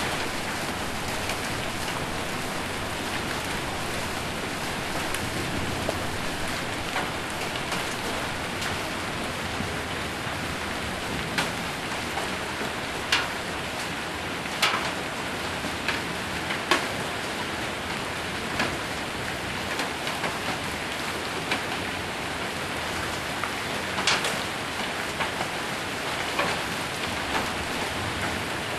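Heavy rain and hail hammering a metal roof: a steady dense patter with scattered sharper hits of hailstones, irregular and roughly every second or two.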